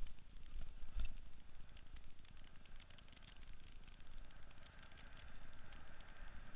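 Wind buffeting a helmet camera's microphone on a downhill mountain-bike run, a low rumble with scattered clicks and knocks from the bike rattling over rough trail.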